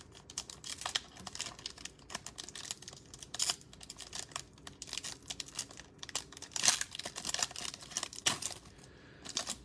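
Foil trading-card pack being worked open by hand: irregular crinkling and crackling of the wrapper, with a few sharper, louder crackles, as the sealed top resists tearing.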